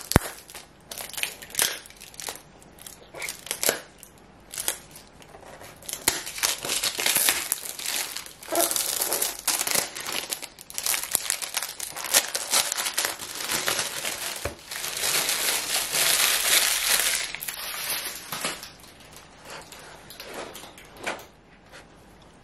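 Packaging of a gel polish kit crinkling and rustling as it is unwrapped and opened, in irregular bursts, with a longer continuous stretch about fifteen seconds in.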